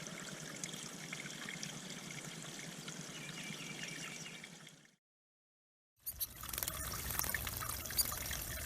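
Water trickling and splashing steadily into a backyard bird pond, with faint high chirps over it. About halfway through it fades out, there is a second of silence, and then louder, brighter trickling comes back with a few sharp splashes.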